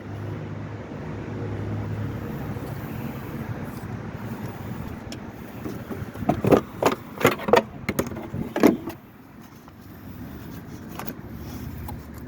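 Steady road vehicle noise, with a run of about five sharp knocks or clunks a little past halfway through.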